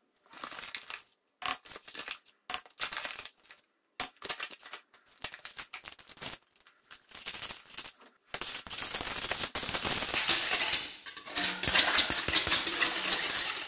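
Short scattered clinks and knocks as cornstarch and sugar are spooned into a small aluminium saucepan of lemon juice, then from about eight seconds in a wire whisk beating fast against the pan, a continuous metallic clatter and scrape.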